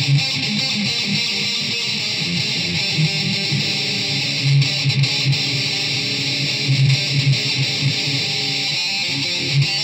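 Solo electric guitar improvising, picking a changing line of mostly low notes, over a steady hiss.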